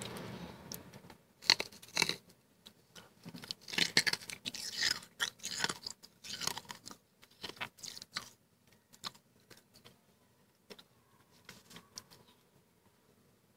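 Chewing a mouthful of crunchy freezer frost. Sharp crunches come thick for the first eight seconds or so, then thin out to a few faint crunches.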